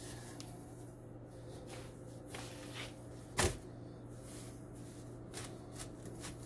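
Hands pressing and smoothing pizza dough out on a perforated metal pizza pan, faint soft rubbing and rustling, with one sharp knock about three and a half seconds in.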